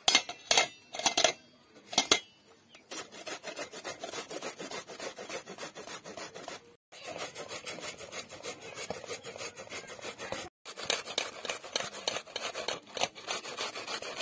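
A cabbage head grated on a flat stainless steel grater: a long run of fast rasping strokes, broken twice for an instant. About four sharp metal clinks come first, in the opening two seconds.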